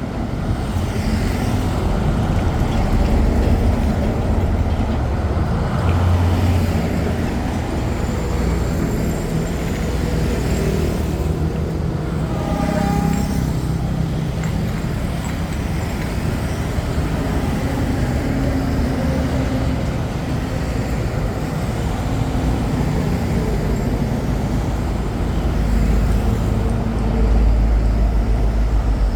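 Steady rumble of road traffic from passing vehicle engines, with a short pitched sound about halfway through.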